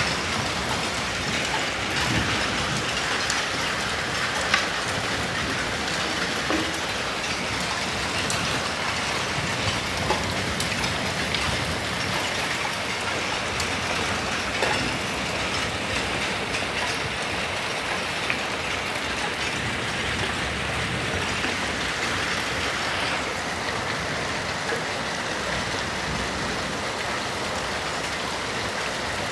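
Heavy rain mixed with hail pelting the ground: a dense, steady hiss dotted with many sharp ticks of stones striking.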